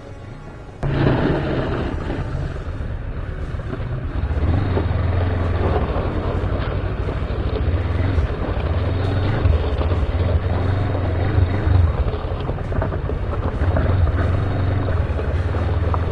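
Motorcycle engines running at low speed over wind buffeting the microphone. The sound comes in abruptly about a second in and grows a little louder and lower after about four seconds.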